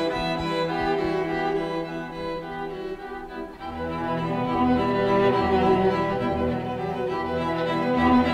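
Background music of slow, held bowed-string chords. Deeper low notes come in about halfway through.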